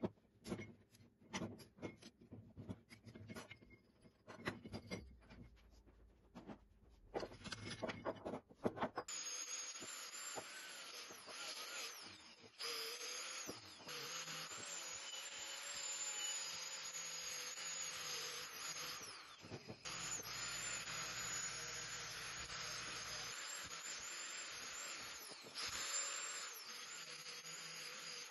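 Clicks and knocks of a steel wrench working the nut on a rusty iron caster wheel, then, about nine seconds in, an angle grinder with an abrasive disc starts and runs steadily, stripping loose rust from the caster fork and a steel cart handle. Its sound dips briefly a few times as the disc is pressed into the metal.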